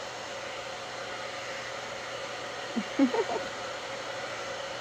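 Conair blow dryer with a diffuser attachment running steadily, a whooshing noise with a steady hum. A few short pitched sounds break in about three seconds in, briefly louder than the dryer.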